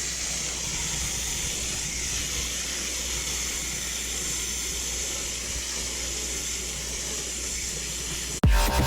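Steady hissing noise with a low hum beneath it. It breaks off near the end as electronic music starts.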